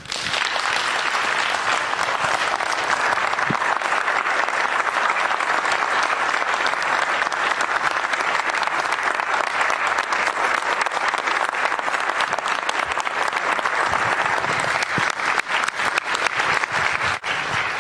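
Audience applauding: many people clapping at once. It starts suddenly, holds steady, then thins to scattered claps near the end.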